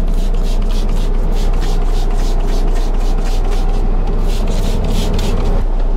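A cloth being rubbed hard back and forth over the truck's surface, about four quick wiping strokes a second, over a steady low rumble.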